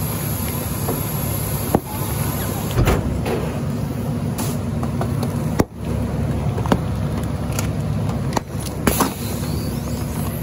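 A rear-loader garbage truck running with a steady low hum, with a few sharp clicks and knocks now and then.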